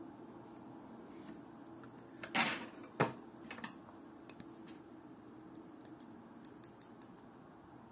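Small handling clicks as a metal watch case is turned in the fingers. The loudest are a short rustle and a sharp click about two and a half to three seconds in, then light metallic ticks near the end as a flat steel tool touches the case and its plexiglass crystal, over a faint steady hum.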